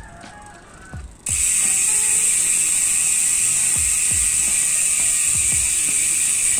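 Speedone Soldier 6-pawl rear hub freewheeling: the pawls ratchet in a loud, steady, high-pitched buzz as the wheel coasts. The buzz comes in suddenly about a second in, after a quieter start.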